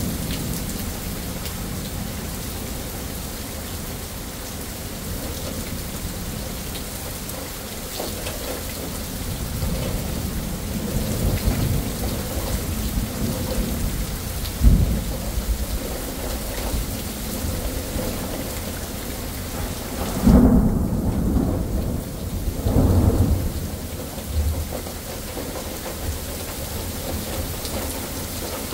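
Steady heavy rain with thunder. Low rumbles build about a third of the way in, with a sharp crack near the middle. Two loud peals follow about two-thirds of the way through, then fade back to the rain.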